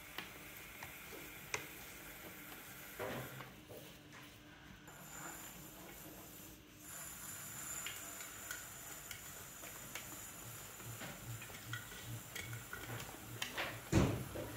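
Metal trimming tool shaving a leather-hard terracotta bowl on a turning potter's wheel: faint scraping with scattered ticks as clay ribbons peel off, and one sharper knock near the end.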